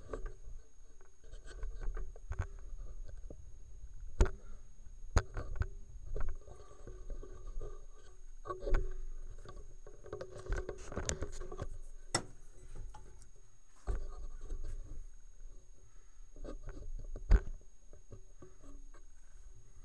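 Handling noise at a workbench: scattered sharp knocks and clicks of metal tools and parts being moved and set down, over a low rumble.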